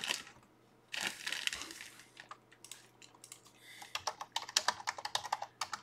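Typing on a computer keyboard: two quick runs of keystrokes, the first about a second in and the second from about four seconds, as a player's name is entered into a search.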